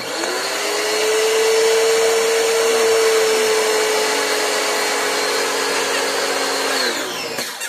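Kawasaki-branded electric high-pressure washer's motor and pump switched on and running with a loud steady hum and hiss while the gun is held open to prime it until water comes out. It is switched off near the end and winds down with a falling pitch.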